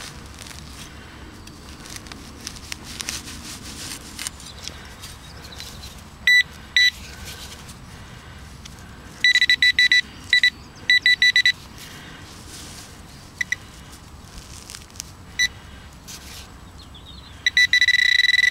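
Handheld metal-detecting pinpointer beeping at one steady high pitch as it is probed through dug soil: a couple of short beeps, a quick run of beeps, then a continuous tone near the end as it sits on a shallow target. Faint scraping of soil and turf comes before the first beeps.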